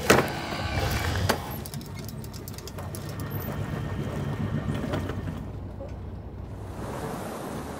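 Sailing yacht under way in light wind: a steady low rumble of the boat and water, with a sharp knock at the start, another about a second in, and a run of light clicks just after.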